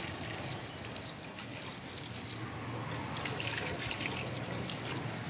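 Water being poured into a cooking pot of meat and spices, a steady trickle throughout.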